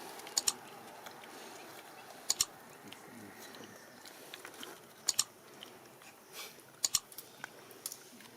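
Macaque biting and chewing food: sharp, crisp crunches, mostly in quick pairs, about five times spread over several seconds.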